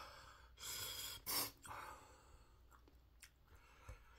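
A man breathing out noisily through mouth and nose, with two strong exhalations about a second in, then softer breathing.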